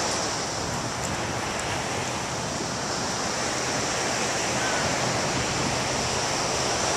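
Ocean surf breaking on a sand beach: a steady rushing wash of noise.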